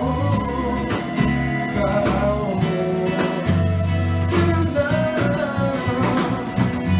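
Music: a song with a voice singing over guitar and a steady bass line.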